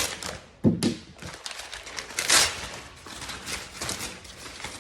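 A product box and its packaging being handled: a single thud about half a second in, then a short rustling scrape about two seconds in, with light tapping and clicking throughout.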